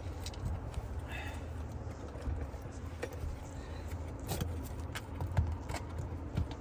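Scattered light clicks and scrapes of asphalt shingles being handled on a roof, over a steady low background rumble.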